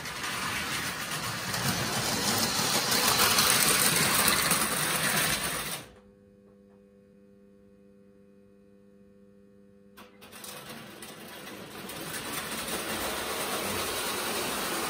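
Lionel O gauge electric toy train running on tinplate track, its motor whirring and wheels clattering. About six seconds in it cuts out abruptly as the block signal's train-stop unit cuts power, leaving only a low steady hum for about four seconds. Then the train starts again and runs on, growing louder.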